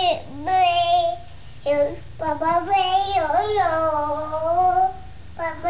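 A toddler singing in a high voice, in drawn-out sliding notes broken into several short phrases, the longest about three seconds.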